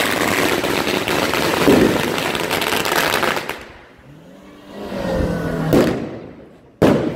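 Firecrackers going off on a street in a dense, rapid crackle for about three and a half seconds. Then a car engine revs up with a rising pitch as the car drives past, and sharp firecracker bangs go off near the end.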